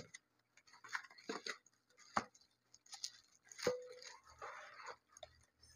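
Faint unpacking sounds: a cardboard box being handled, with a few scattered light taps and knocks, then a short rustle of plastic wrapping about four and a half seconds in.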